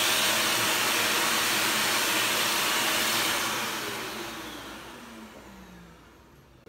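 A whooshing electric motor, like a vacuum cleaner's or a blower's, running steadily and then spinning down, its pitch falling as it fades out over the last three seconds: the power has been cut.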